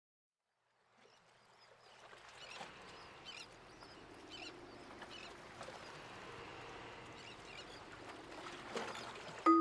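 A soft outdoor ambience fading in from silence, a steady wash with faint chirps repeating through it. Right at the end, bright glockenspiel-like music notes begin.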